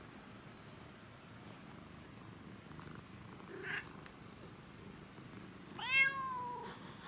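Domestic cat purring with a steady low rumble, and about six seconds in a cat gives one loud meow that rises and then falls away.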